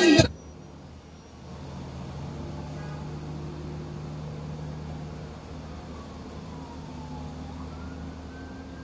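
Street traffic: the low, steady engine hum of a box truck and cars sitting in the lane. From about six seconds in, a faint siren falls and rises in pitch far off. Music cuts off at the very start.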